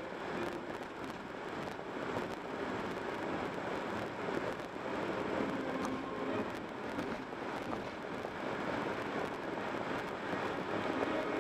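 Steady tyre and road noise of a car cruising at highway speed.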